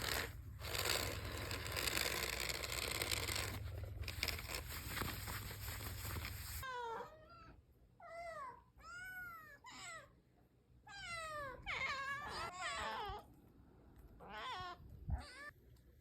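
Domestic cat meowing repeatedly, about seven or eight separate meows, each rising then falling in pitch, in the second half. Before them a steady rustling hiss cuts off suddenly about seven seconds in.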